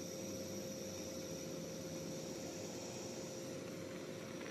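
Portable gas camping stove burning steadily under a pot of simmering noodles: an even hiss with a steady hum through it.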